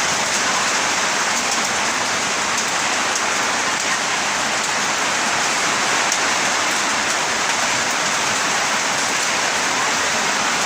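Heavy rain from a summer storm, pouring steadily, with scattered faint sharp ticks of drops striking.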